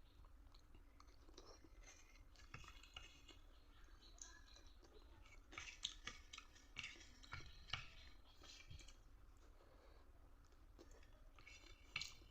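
Faint chewing and mouth clicks of a person eating spicy Maggi instant noodles, in scattered short bursts that bunch together about halfway through and again near the end.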